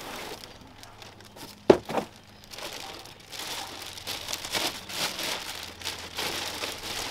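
Clear plastic bag around a set of all-weather floor liners crinkling and rustling as it is handled and pulled open, busier in the second half. Two sharp thumps come about two seconds in.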